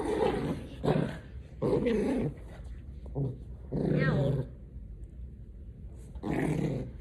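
Small dog play-growling in a series of short, rough bursts as it tussles with a child's hands, with a pause a little after the middle.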